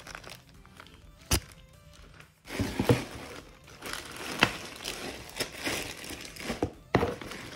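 Packaging crinkling and rustling as a boxed pair of corner shelves is unwrapped by hand, with a single sharp click a little over a second in.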